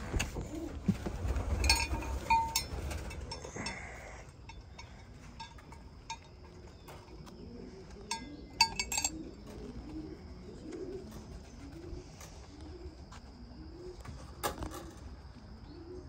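Pigeons cooing: a run of repeated low, rising-and-falling coos from about six seconds in. At the start there is clattering and clinking from handling gear in the loft.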